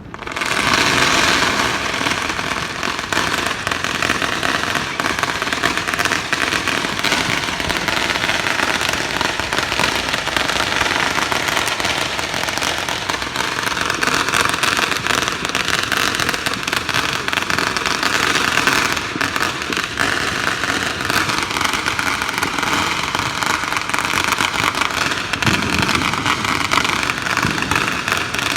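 Firecrackers going off in a dense, unbroken string of rapid cracks, starting abruptly and running on without a pause.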